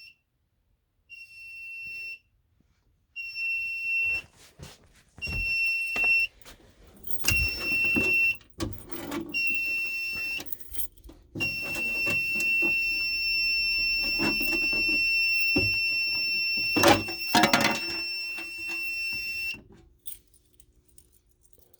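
Fire alarm panel's piezo sounder beeping at one high pitch, about one second on and one second off, then sounding without a break for about eight seconds before it stops. This is the trouble sounder going off for the NAC circuit fault. Light clicks and key clinks run under it.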